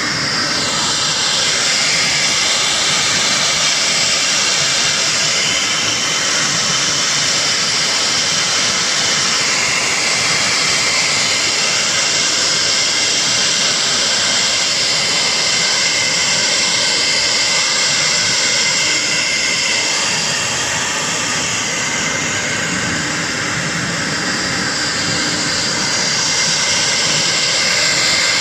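CNC router spindle running at high speed while its V-bit engraves line work into a wooden board: a steady, high-pitched whine mixed with the hiss of cutting.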